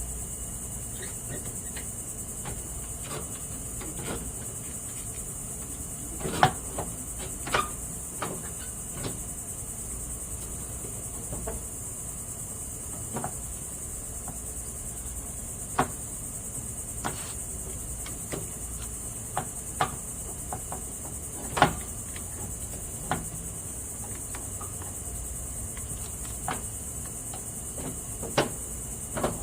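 Scattered clicks and knocks of hands pressing a rubber anti-slip pad onto a riding mower's metal accelerator pedal, over a steady high-pitched insect chorus.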